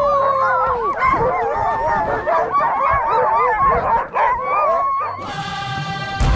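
A team of sled dogs howling, yipping and whining all at once, many wavering cries overlapping in an excited clamour. Music comes in about five seconds in.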